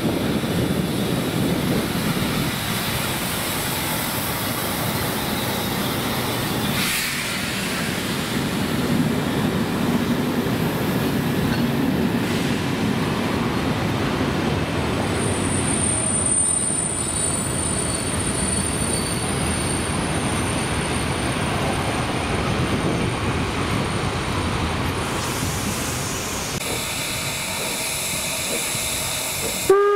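Steam-hauled passenger train rolling past on the rails: a steady rumble of wheels and carriages, with a thin high wheel squeal for several seconds in the middle.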